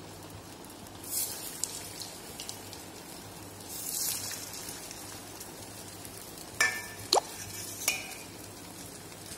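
Bread rolls stuffed with potato deep-frying in hot oil in a kadhai, with a steady sizzle that flares as each roll goes in, about a second in and again about four seconds in. A few sharp metal clinks come about two-thirds of the way through.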